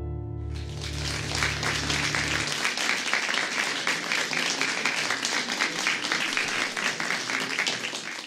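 A final piano chord over a low bass note rings and fades away over the first couple of seconds. An audience breaks into applause about half a second in, and the clapping then carries on steadily.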